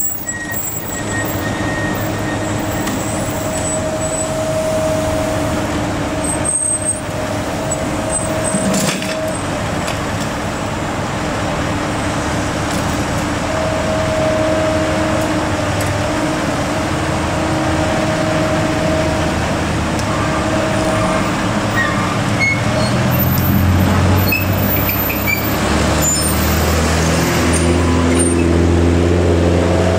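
Heavy diesel engines running steadily: a Komatsu hydraulic excavator working beside trucks passing on the road. Over the last several seconds an engine speeds up and works harder, as the excavator lifts a heavy load.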